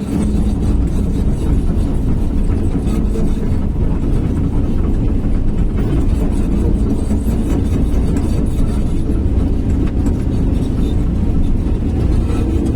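Sany SY215C crawler excavator's diesel engine running steadily with a deep, low drone.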